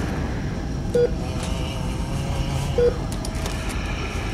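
Short, low electronic beep repeating about every two seconds, heard twice, over a steady background hum.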